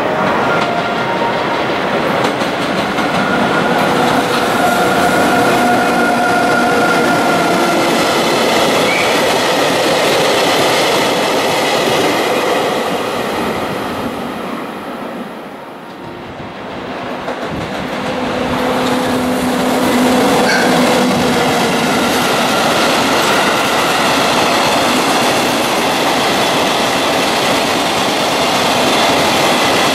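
Freight wagons rolling steadily past at speed, wheels clattering over rail joints, with some drawn-out wheel squeal. Partway through the sound briefly dips, then a second freight train of hopper wagons rolls past just as loud.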